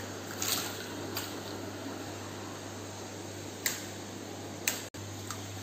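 Steady low electric hum with a hiss from running aquarium equipment such as pumps and filters, with a few short clicks and knocks.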